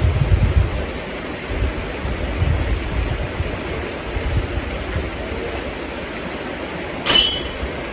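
Wind buffeting the microphone in uneven low gusts over a steady rushing hiss, strongest at the start. About seven seconds in comes one brief, sharp, high-pitched sound.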